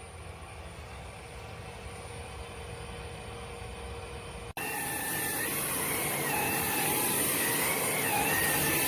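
A motor running with a steady whirring hiss that slowly grows louder. About halfway through it cuts off abruptly to a louder run with a wavering whine.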